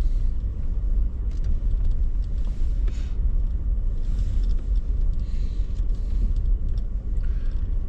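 Truck driving slowly, heard from inside the cab: a steady low rumble of engine and road, with a few faint clicks and rattles.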